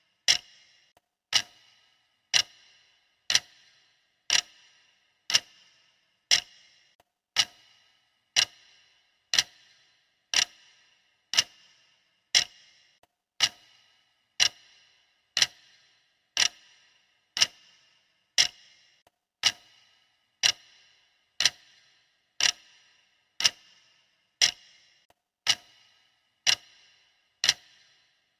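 Clock ticking steadily, one sharp tick a second, each with a brief bright ring.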